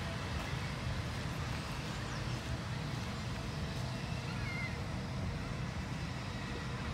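Steady outdoor rumble with a few faint bird chirps, one around the middle and another near the end.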